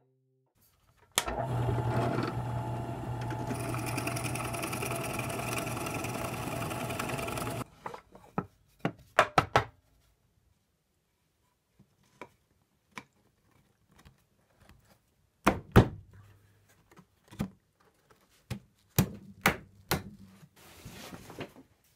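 Bench drill press running and boring holes in a wooden block, a steady motor hum with cutting noise for about six seconds that cuts off suddenly. Then scattered sharp knocks and clicks of wooden parts being handled and fitted.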